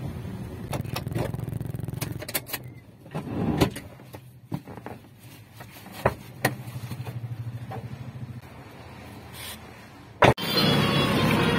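Suzuki car engine running, heard from inside the cabin while driving, with its drone dropping lower after about four seconds. Several sharp clicks and knocks are heard over it, and one loud sharp thud comes near the end, fitting a car door being shut.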